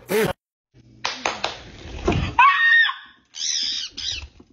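The end of a drawn-out vocal 'waaooo' exclamation, then, after a brief silence, short high-pitched wordless vocal cries with a few clicks.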